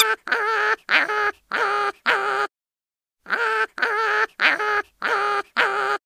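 A quacking sound effect: a run of short, identical nasal quacks, about two a second, broken by a brief dead silence near the middle. It is laid over the picture, not the birds on screen.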